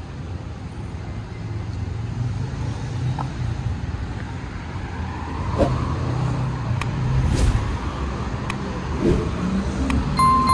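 Road traffic on a wide city avenue: a steady low rumble of passing cars, with a few brief clicks. A short electronic ding sounds near the end.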